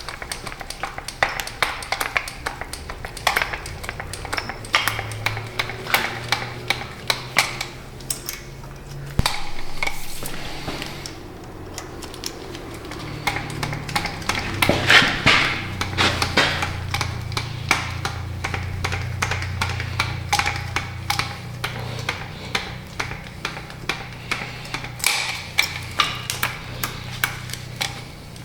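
Hand lever grease gun being pumped into the grease fittings of an excavator's boom pins: a run of sharp metallic clicks, about one or two a second, over a low steady hum.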